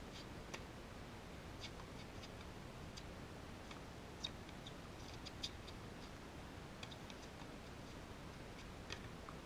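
Tennis rally: sharp pops of racket strings striking the ball and of the ball bouncing, starting with the serve about half a second in and followed by a string of further hits and bounces at irregular intervals of a second or two, faint over steady outdoor background noise.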